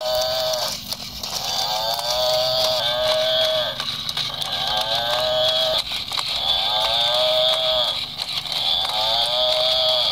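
Battery-operated toy water buffalo playing its recorded moo through its small speaker over and over, each call about a second long and falling in pitch at the end, roughly one every second and a half. A steady high whir from its walking motor and gears runs underneath.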